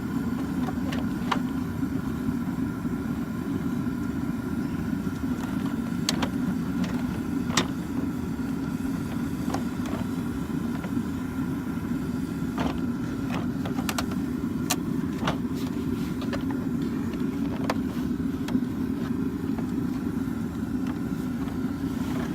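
A steady low drone with a faint high whine, and scattered sharp clicks and light knocks from plastic door trim parts being handled and fitted.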